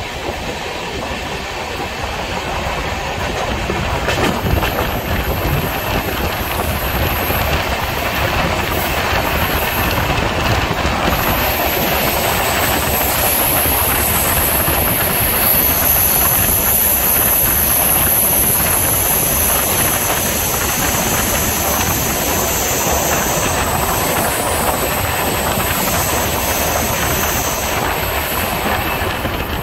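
Indian Railways passenger train running along the track, heard from the open doorway: steady rumble and clatter of the wheels on the rails, growing louder about four seconds in. A high, steady wheel squeal joins from about eleven seconds in and fades near the end.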